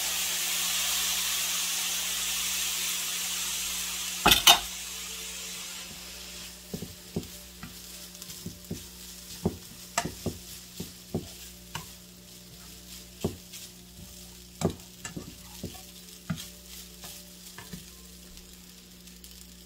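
Lemon rice sizzling in a nonstick frying pan, the sizzle fading over the first few seconds. Then come two sharp knocks of a slotted spoon against the pan, followed by the spoon stirring and scraping the rice with irregular taps on the pan, about one or two a second.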